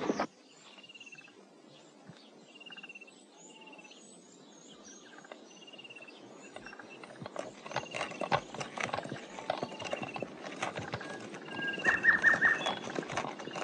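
Birds chirping in short repeated calls, then from about halfway a horse's hooves clip-clopping as a horse-drawn buggy approaches, growing louder toward the end.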